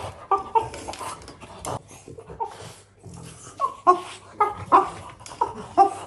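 French bulldog puppy making a string of short, squeaky, monkey-like grunts and yelps, coming thick and fast in the second half, while it mouths and paws metal grill tongs. Sharp clicks of the metal tongs knock against the floor between the calls.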